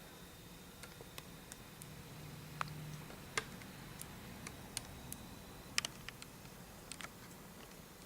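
Faint, irregular light clicks and taps, about a dozen of them, over quiet room noise. A faint steady high whine stops about six seconds in.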